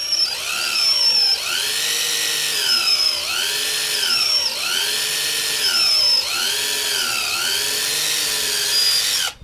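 Electric drill boring a small pilot hole into a Jeep Wrangler door handle, its motor whine rising and falling in pitch over and over as the speed varies, then stopping abruptly near the end.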